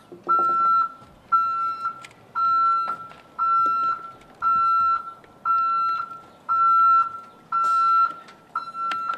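Truck's electronic warning beeper sounding a steady, high beep about once a second, each beep on a little longer than the gap.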